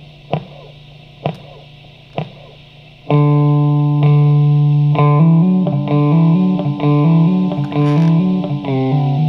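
Electric guitar through a Guyatone MD3 digital delay with the feedback set high. A percussive string hit repeats about once a second, each echo quieter. About three seconds in, a loud sustained tone comes in, alternating between two pitches several times a second and sliding down near the end.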